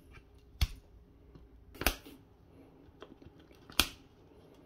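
Three sharp plastic snaps, spaced about a second or two apart, as leftover bits of a molded plastic knock-out barrier are gripped, bitten and pulled off to open the hole in a Lillviken sink drain fitting.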